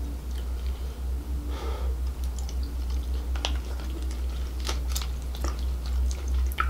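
Lobster and crab shell being pulled apart and picked at by hand, making scattered sharp cracks and clicks over a steady low hum.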